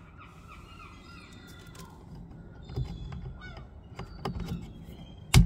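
Clicks and knocks from work on a car door, with one loud thump near the end. Birds chirp in the background in short falling calls.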